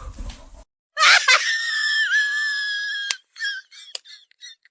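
An animal screaming: one long, high-pitched scream held about two seconds, then a quick run of short squeaky cries.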